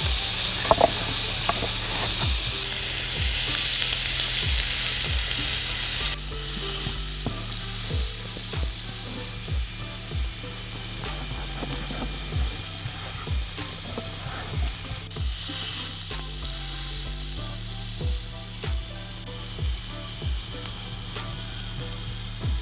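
Meat sizzling as it cooks over a fire, loudest in the first six seconds, with background music with a steady beat underneath.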